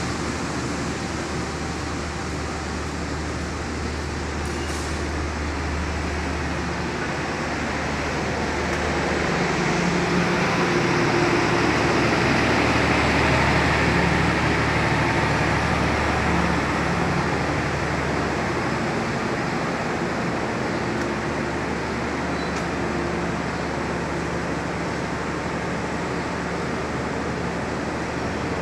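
Passenger train coaches passing along the station track: a steady rolling rumble with a low engine hum. It swells around the middle as the train's diesel generator car goes by, then settles back.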